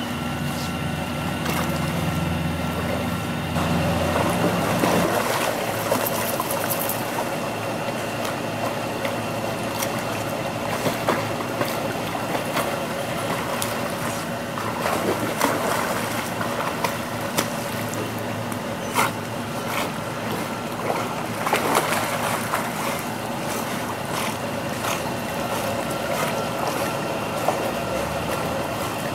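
Pool water splashing and sloshing as German Shepherd dogs swim and paddle, with scattered sharper splashes. A low hum stops about five seconds in.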